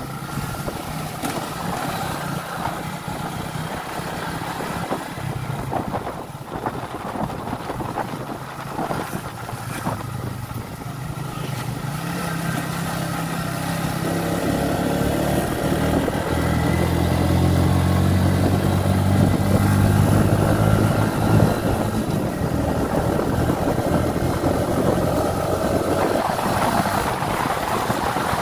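Motorcycle engine running while riding along a road. It grows louder and stronger from about halfway through.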